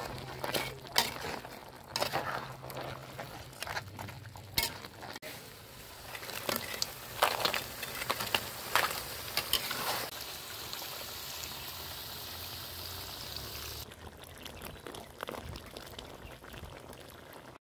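Crabs in coconut milk simmering in a wok: bubbling and sizzling, with scattered sharp pops and clicks through the first half, then a steady hiss, and quieter after a change near the end.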